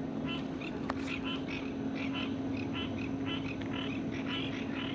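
Chorus of pond frogs calling, many short calls repeating and overlapping, over a steady low hum; a single sharp click about a second in.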